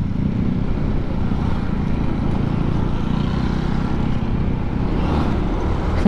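Honda Click 125i scooter at speed: its single-cylinder engine running under a steady rush of wind and road noise.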